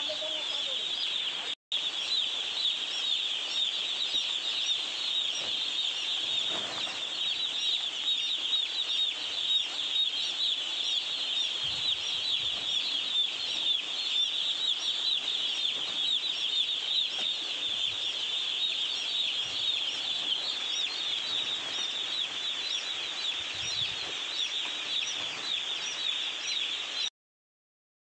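A flock of hundreds of day-old chicks peeping together, a dense chorus of high-pitched cheeps. It breaks off for an instant about a second and a half in, and cuts off suddenly near the end.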